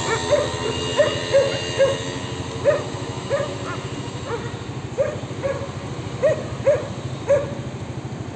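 A pack of street dogs barking, a dozen or so short barks coming every half second or so with a few brief pauses, over the steady low rumble of a vehicle engine.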